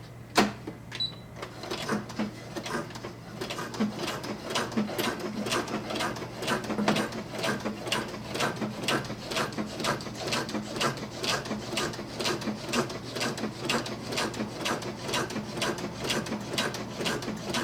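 Brother SE-400 sewing machine stitching slowly through nylon strap webbing: a sharp click just after the start, then the needle mechanism clicking in a steady rhythm of about two to three stitches a second.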